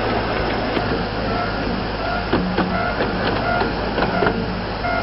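15-inch-gauge miniature railway train running, heard from one of its coaches: a steady rumble of wheels on track, with clicks from the rails and brief high squeaks coming and going.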